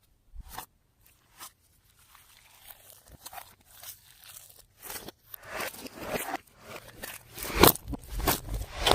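Slime being squished and worked by hand, giving wet crackling and crunching pops: a few isolated clicks at first, then a steadily busier, louder run of crackles through the second half.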